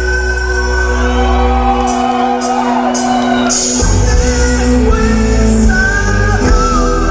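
Live band music playing loud with sustained instrumental notes. The bass drops out about two seconds in and comes back near the four-second mark, with a wavering voice-like line over the break.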